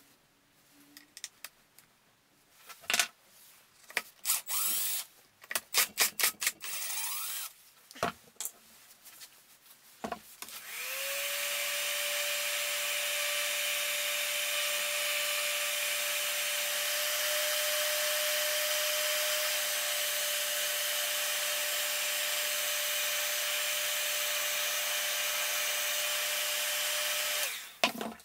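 A series of sharp clicks and knocks from tools being handled, then a hot-air heat gun switched on, its fan whining up to a steady pitch with a loud rush of air, running for about seventeen seconds to heat a seized screw before it is switched off near the end.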